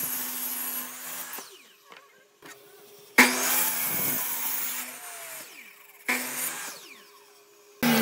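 Power tool working wood in short bursts of one to two seconds, each starting abruptly, with quieter gaps between where the motor winds down.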